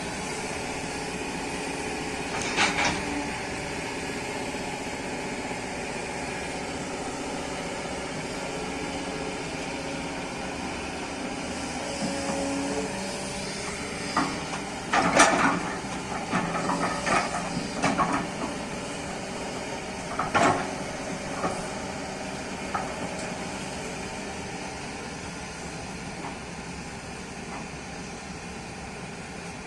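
Kobelco hydraulic excavator running steadily at work, its diesel engine humming, with several sharp knocks and clanks, one about three seconds in and a cluster around the middle.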